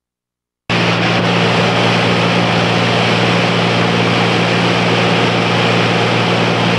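Light aircraft's piston engine and propeller droning steadily, heard inside the cabin with a loud rushing hiss of air. The sound cuts in suddenly under a second in.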